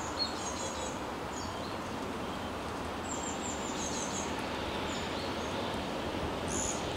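Small birds chirping in short high calls, in a few bursts, over a steady even hiss of outdoor background noise.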